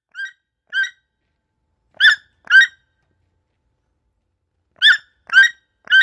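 A toucan calling: seven short yelping notes in groups, two faint ones near the start, a louder pair about two seconds in, and three loud ones near the end.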